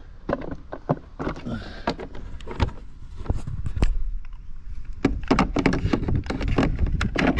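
Plastic clicks, knocks and scraping from the battery compartment of a Makita cordless lawnmower as its lid is opened and an 18V Makita battery pack is slid into its slot. The clicking gets busier about five seconds in.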